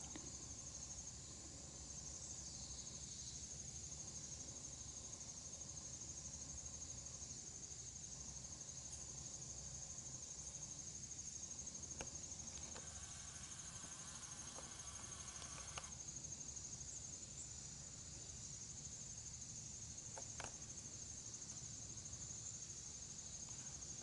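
An insect chorus trilling steadily at a high pitch, with a few faint clicks.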